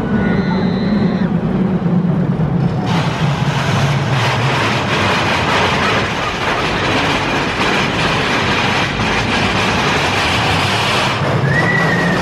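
Big Thunder Mountain Railroad mine-train coaster running along its track at speed: a low rumble at first, then a loud rushing and rattling from about three seconds in until near the end.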